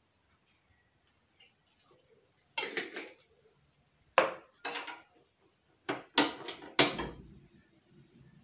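Small steel ladle clanking against a gas stove's burner grate as it is set down and positioned, about eight sharp metallic knocks in three groups, with a faint steady hiss after the last.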